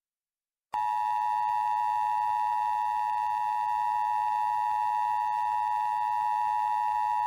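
Emergency Alert System attention signal: the steady two-tone alert (853 Hz and 960 Hz together), starting about a second in and holding unchanged.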